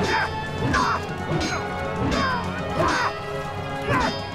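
Sword clashes in a fight scene: repeated metallic clangs, each with a short ringing tail, coming more than once a second over sustained background music.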